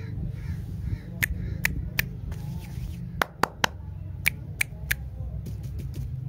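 Sharp finger snaps, nine in all, in three quick groups of three about a second apart, over a steady low hum.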